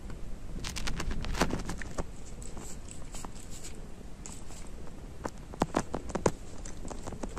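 Scattered light clicks and taps as a kitten paws and mouths at a hand and shifts about, in a cluster about a second in and another around five to six seconds, over a low steady background rumble.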